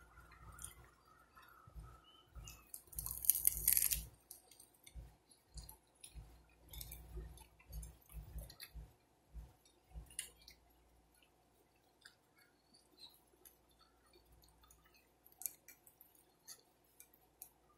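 Close-up chewing and mouth smacking while eating, with wet clicks and small knocks, and a brief loud noisy burst about three seconds in; the sounds thin out to occasional faint clicks in the second half.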